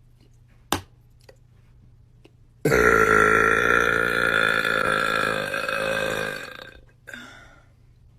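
One long, loud burp from a person, starting abruptly and lasting about four seconds before fading out, with a short weaker sound just after it. A single sharp click comes shortly before it.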